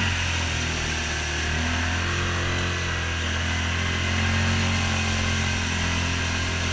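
Yamaha Rhino side-by-side's single-cylinder engine running at low speed as it drives through a muddy creek bed, steady and briefly louder about four seconds in.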